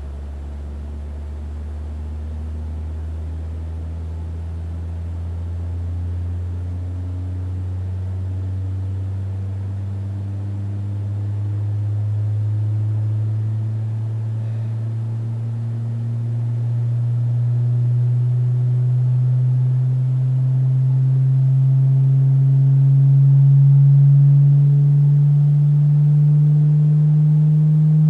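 Loudspeaker driven by a function generator, playing a low sine tone that glides slowly and steadily upward in pitch and grows louder throughout. The sweep drives a soap film on a wire frame through its resonant normal modes.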